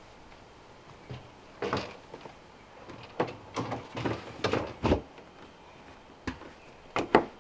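Top cowling of a Yamaha 300 hp outboard being lowered onto the engine and pressed down to seat: a string of knocks and clunks as the cover meets the engine, with two sharper knocks near the end.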